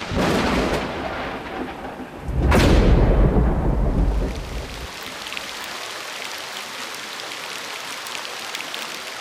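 Thunderstorm: a rumble of thunder, then a louder, sharper thunderclap about two and a half seconds in that rolls on for a couple of seconds. After it, steady heavy rain hisses.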